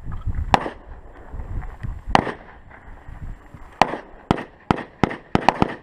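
Gunshots: sharp cracks, a couple spaced well apart and then a quickening run of shots over the last two seconds.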